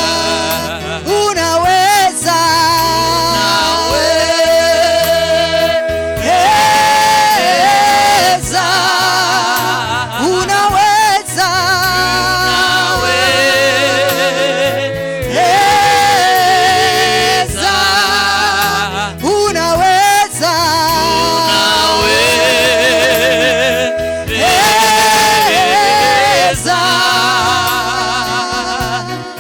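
Swahili gospel worship song: a voice singing long, wavering held notes over a steady instrumental backing.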